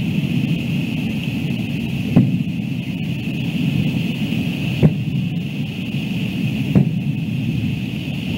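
Distant fireworks booming, three dull thumps a couple of seconds apart over a steady background rush.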